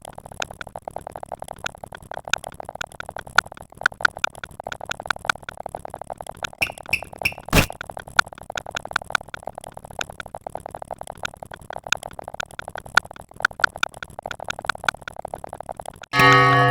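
Rapid, irregular stream of short electronic clicks and ticks over a low steady buzz, with one louder crack about halfway through. Just before the end a loud, sustained synthesizer chord comes in.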